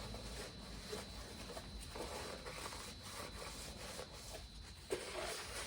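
Faint rubbing and scraping with a few light knocks: hand work on a bare engine block.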